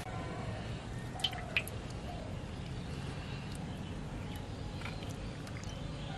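Small water splashes and drips as live catfish wriggle in a shallow basin of water, with two sharp clicks a little over a second in, over a steady low background rumble.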